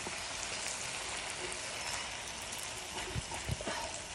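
Fish and prawn pieces sizzling steadily in hot oil in an iron kadai, with a few light knocks of a steel slotted spoon against the pan about three seconds in.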